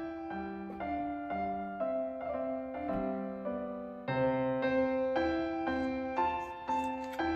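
Background music: a gentle piano tune with evenly paced notes over a bass line, fuller from about four seconds in.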